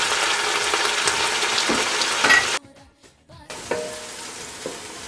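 Chopped onions and garlic paste sizzling in hot oil in an aluminium pot, a steady crackle with small pops. About two and a half seconds in it cuts off to a second of near silence, then a fainter steady hiss follows.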